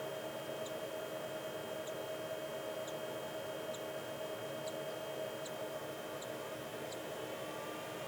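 Steady electric hum of several tones, with faint short high ticks about once a second.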